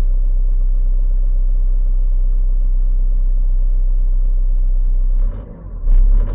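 Nissan X-Trail engine running after a cold start at -15 °C, a steady low rumble. About five seconds in it turns uneven, rising and falling in surges about once a second.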